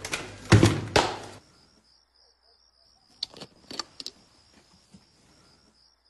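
Three loud rushing noise bursts in the first second and a half, cutting off abruptly. Then a quiet room where a cricket chirps faintly and evenly, about four chirps a second, with a few soft clicks about three to four seconds in.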